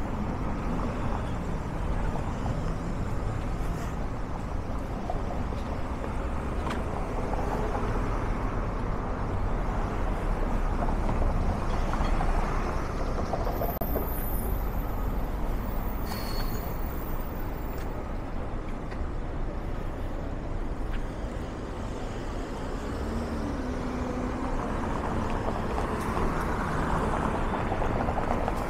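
City street traffic: a steady hum of passing cars and buses, with a brief thin high-pitched tone about halfway through.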